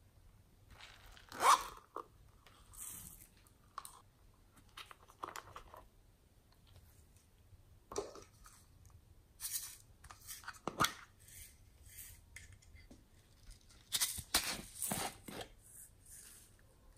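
Hands handling small plastic and silicone containers over a tray of slime: scattered clicks, scrapes and rustles, loudest about a second and a half in and again in a cluster near the end.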